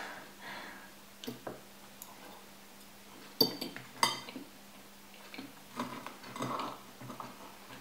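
Metal cutlery clinking and scraping against a dish: a handful of sharp clinks with a short metallic ring, the loudest two about halfway through, between softer handling noises.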